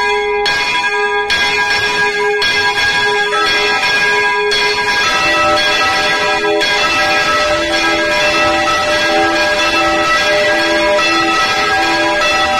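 Swinging church bells rung full circle (Spanish volteo) from close inside the belfry, loud, with repeated strokes that ring on into each other. A second, lower-pitched bell takes over about five seconds in, and the strokes come closer together.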